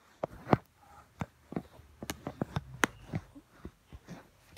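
Handling noise: about a dozen irregular clicks and knocks from hands moving the camera and makeup close to the microphone.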